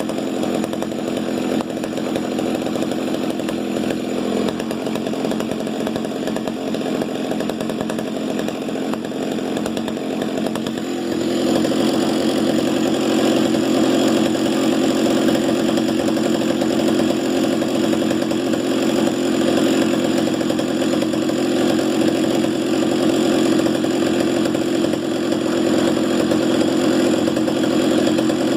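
Stihl 08S 60cc two-stroke chainsaw engine running steadily; about eleven seconds in it gets louder and higher and holds there.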